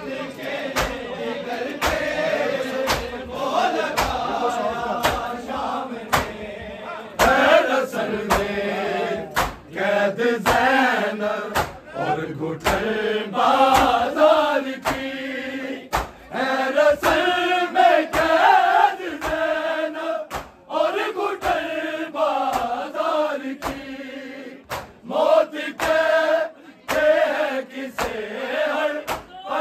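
A group of men chanting an Urdu noha, a Shia mourning lament, in unison. Sharp slaps at a steady beat run under the singing, the hand-on-chest beating of matam.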